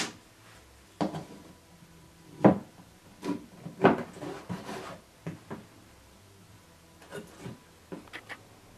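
Irregular wooden knocks and clatter as thin pine ribs are handled and fitted into a slotted stringer on a plywood board. The loudest knocks come about two and a half and four seconds in, and it ends with a quick run of light taps.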